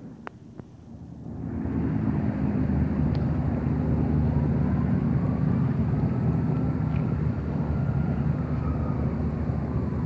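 Low steady rumble of distant engine traffic, building up over the first two seconds and then holding, with a faint whine that slowly rises and falls in pitch. A couple of sharp clicks right at the start.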